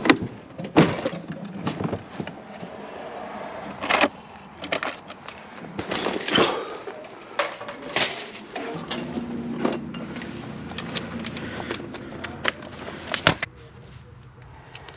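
Irregular clicks, knocks and rattles of small metal hardware and cable being handled at a fiber drop terminal. A steady low hum runs for a few seconds in the second half.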